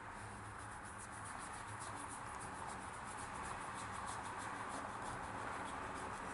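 Thin watercolor brush stroking across paper in a quick run of light, scratchy ticks, over a steady background hiss.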